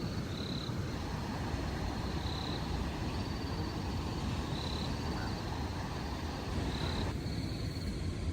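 Steady low rush of surf and wind, with a short high chirp repeating about every two seconds.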